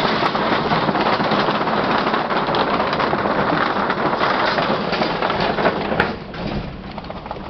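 Car tyres rolling over the loose, unnailed wooden deck boards of a swinging suspension bridge, setting off a dense, continuous clattering and rattling. About six seconds in there is a sharp click, and the noise drops to quieter tyre rumble on the gravel road.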